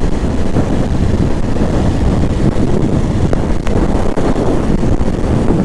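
KTM 890 Adventure R's parallel-twin engine running steadily under way, mixed with heavy wind buffeting on the microphone.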